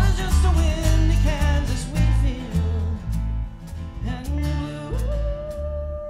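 Live country-folk band music: strummed acoustic guitar over a steady bass line, with a melody line on top. Near the end the band drops out, leaving one held note as the music fades.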